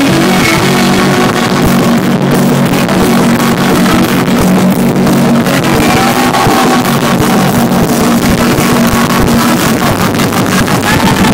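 Live electronic rock music played very loud over a concert sound system: a heavy sustained bass with a beat of drum hits and guitar. The recording is overloaded and distorted.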